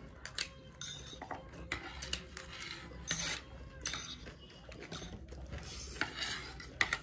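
Forks and spoons clicking and scraping against plates while chow mein noodles are eaten, with short slurps of noodles being sucked in.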